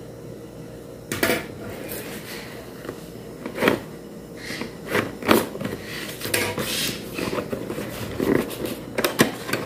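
Cardboard headphone box handled and opened by hand: irregular scrapes, rubs and taps of cardboard, the loudest about four and five seconds in.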